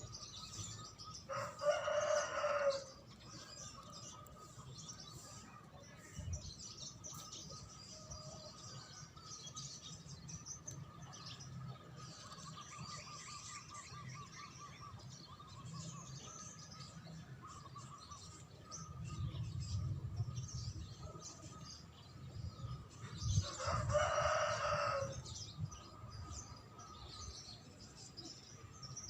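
A rooster crowing twice, once near the start and again about 22 seconds later, each crow lasting about a second and a half. Between the crows, small songbirds chirp and call more faintly.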